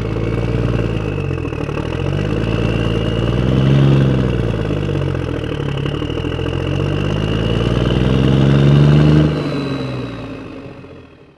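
Tractor engine sound effect dubbed over the toy: an engine running, swelling up and easing off twice in pitch and loudness, then fading out near the end.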